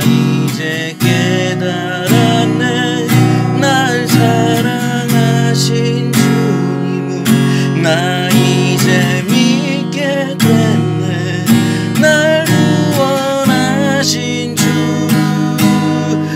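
Korean worship song with acoustic guitar strumming chords in a steady rhythm, with a wavering melody line over it.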